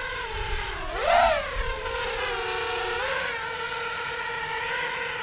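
Racing quadcopter's brushless motors and propellers whining in a hover, with a short rise in pitch about a second in, then stopping suddenly near the end. The pilot takes the sound for oscillation from the P gain.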